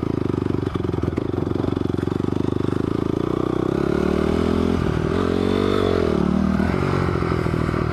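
Honda CRF250R's single-cylinder four-stroke engine running under throttle, its pitch rising and then dropping back about five seconds in.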